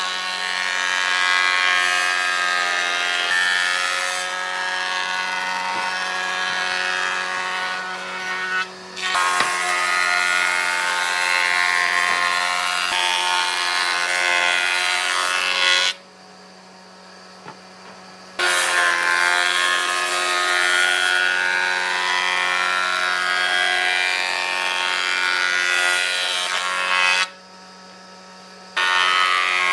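Electric power tool working wood: the motor runs at a steady pitch under a rough cutting and rubbing noise. It stops about sixteen seconds in and starts again a couple of seconds later, then stops and restarts once more near the end.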